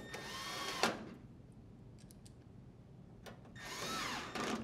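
Cordless drill driver with a 1/4-inch bit driving screws into a dryer's metal backsplash panel. It runs twice, about a second each time, near the start and again near the end, and its motor whine rises and falls with each screw.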